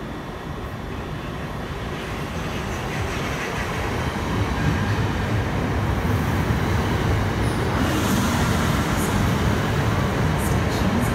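Southern Class 377 Electrostar electric multiple unit running into the station platform, a low rumble of wheels on rail that grows steadily louder as it comes past close by. A few short, high clicks near the end.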